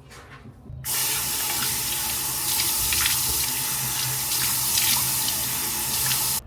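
Water running from a tap into a sink: a steady gush that starts about a second in and stops suddenly near the end.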